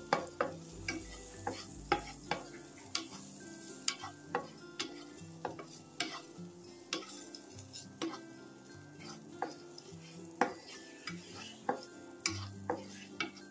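Raisins roasting in hot ghee in a pan while a spatula stirs them: irregular sharp clicks of the spatula against the pan, about one or two a second, over a light sizzle.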